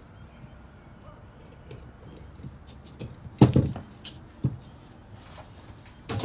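Small metal carburettor parts clicking as they are handled, then a loud dull knock about halfway as the Solex 34 PICT-3 carburettor body is set down on the bench, followed by a few lighter knocks and one more near the end.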